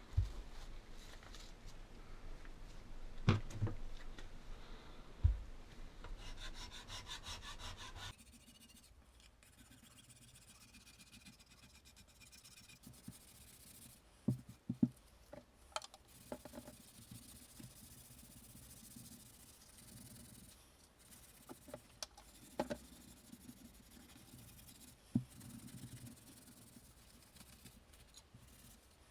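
Hand rubbing and scraping on gun parts, with a quick run of scratchy strokes in the first several seconds. After that it goes quieter, with a handful of light clicks and knocks as the parts are handled.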